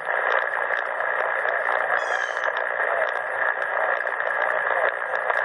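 Steady shortwave static hiss from a CommRadio CR-1a receiver's speaker, tuned to 7.272 MHz in the 40-metre amateur band with no station transmitting. A brief high chirp comes through about two seconds in.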